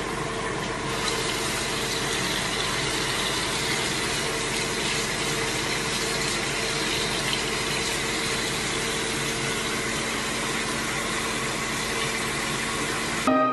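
Steady rushing noise with a constant low hum underneath, from a bathroom sink tap running and an electric fan heater blowing. It stops suddenly near the end.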